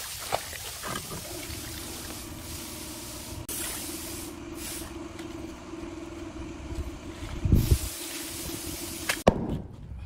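Muddy ditch water splashing and pouring as a waterlogged log is hauled out of it, over a steady low hum. A loud, dull thump comes about seven and a half seconds in. The sound cuts off suddenly shortly before the end.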